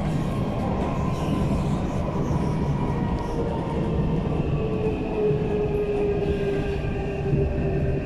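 Onboard sound of an SMRT C151 metro train running on rails: a steady low rumble of wheels on track under a traction motor whine that slowly drops in pitch through the second half.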